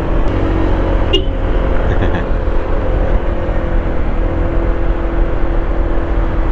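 Honda ADV160 scooter's single-cylinder engine running steadily under load on an uphill climb, a constant low rumble with a steady whine over it.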